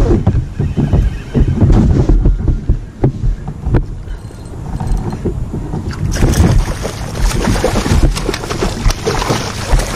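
Water splashing and knocking against a fishing kayak, with low wind rumble on the microphone. The splashing gets busier and brighter about six seconds in.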